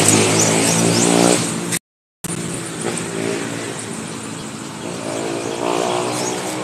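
Brush cutter with plastic trimmer line running at speed, its small engine whining over the hiss of the spinning line in the grass. The sound cuts out completely for a moment about two seconds in, then comes back quieter and speeds up near the end.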